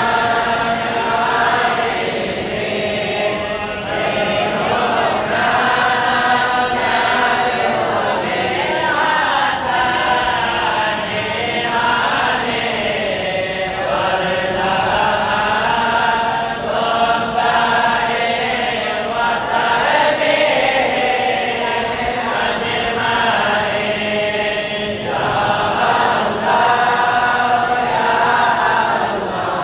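A group of voices chanting together in a continuous melodic devotional chant, the phrases rising and falling in unison.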